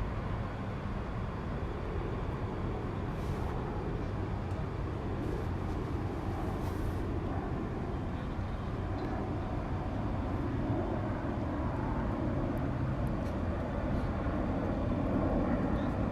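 Low, steady rumble of a distant airplane over night ambience, slowly growing louder near the end.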